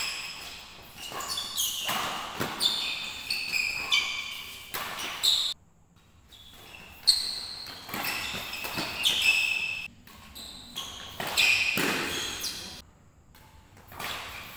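Badminton doubles rally: rackets crack sharply against the shuttlecock, and court shoes squeak in short high chirps on the wooden floor, all ringing in a large hall. There are two brief lulls, about six seconds in and again near the end.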